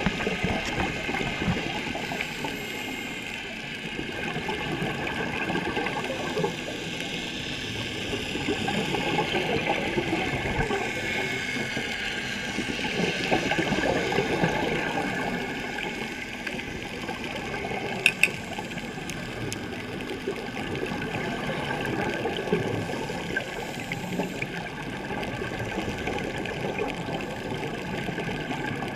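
Underwater sound through a camera housing: a scuba diver's regulator breathing and bubbling exhalations swell and fade in slow waves. Two sharp clicks come about eighteen seconds in.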